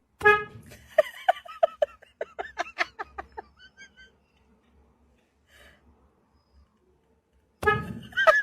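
A person giggling in a quick run of short, evenly spaced laughs, followed after a pause by a loud, high-pitched cry near the end.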